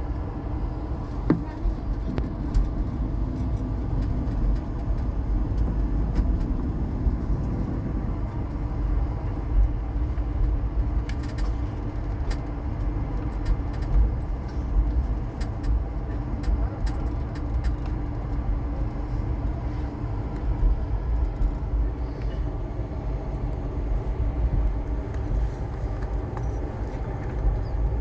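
Steady low rumble of a passenger train running along the line, heard from on board, with a few faint clicks.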